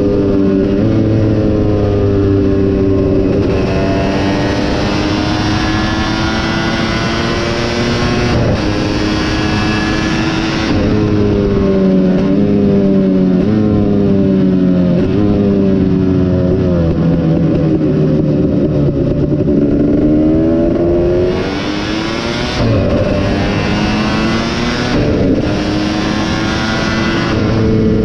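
A KTM 250 SX two-stroke motocross engine racing: the revs climb and drop again and again through the gears, with two long stretches of harder, harsher running.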